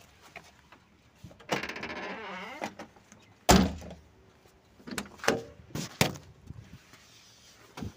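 Car door shut with a loud, sudden thud about three and a half seconds in, after a couple of seconds of scraping handling noise. A few sharp clicks follow, from the door handle and latch.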